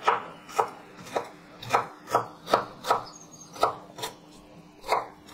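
Chef's knife finely chopping amaranth stems and leaves on a wooden cutting board: steady knocks of the blade on the board, about two a second, with a short pause about four seconds in.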